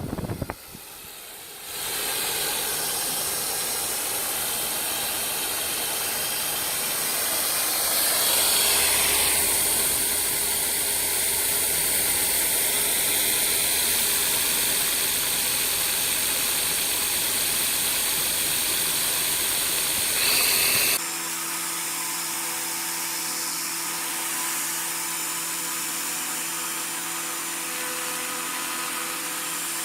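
Electric drill motor running steadily for the air bike, with a strong hiss of rushing air. About two-thirds of the way through the sound changes abruptly to a slightly quieter, steadier hum.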